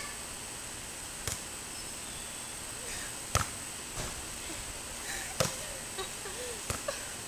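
Tetherball being hit back and forth by hand: a string of sharp slaps as palms strike the inflated rubber ball, a few seconds apart and uneven in strength.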